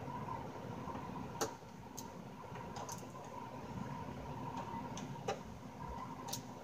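Screwdriver working screws out of a Yamaha THR10 guitar amplifier's casing: about half a dozen small, sharp, irregular clicks and ticks, the loudest about one and a half seconds in, over a steady background hum.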